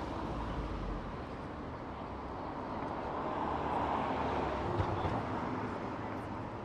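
A road vehicle passing by: its traffic noise swells to a peak about four seconds in and then fades away.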